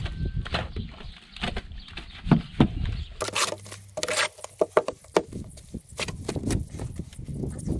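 Shovel churning wet cement-sand mortar, mixed by hand in an old bathtub, with irregular scrapes, slaps and knocks several times a second as sand is worked into the cement slurry.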